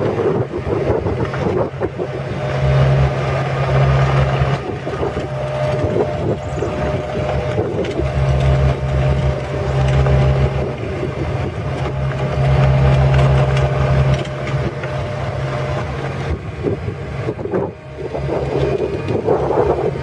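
Kubota V3300 four-cylinder diesel engine of an Ingersoll Rand IR3120 asphalt paver running steadily as the tracked paver drives slowly along, with a steady low hum that swells a little in level now and then.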